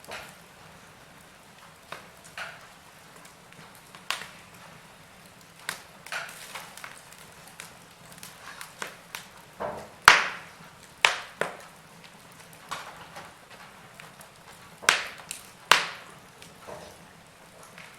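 Wood fire crackling: irregular sharp pops and snaps from burning logs over a low hiss, the loudest pops about ten seconds in and again near fifteen and sixteen seconds.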